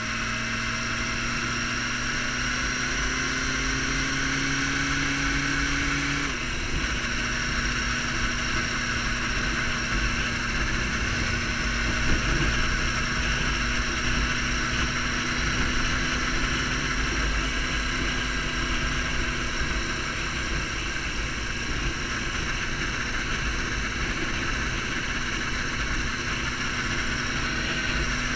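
Sport motorcycle engine under way, its note climbing for about six seconds, dropping suddenly at an upshift, then holding steady at cruising speed. Heavy wind rush over the camera microphone.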